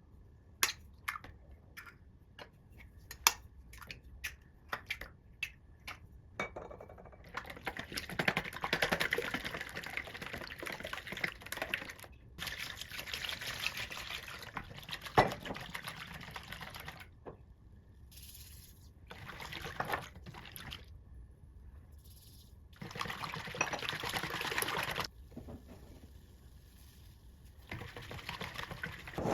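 Kitchen sounds of mixing pancake batter: sharp taps and clicks over the first few seconds, then several stretches of liquid being poured and stirred, each cut off abruptly.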